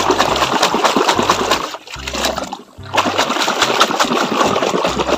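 Muddy water splashing and sloshing as a toy dump truck is swished back and forth in it by hand to wash off the mud, in two long bouts with a short lull a little before the middle.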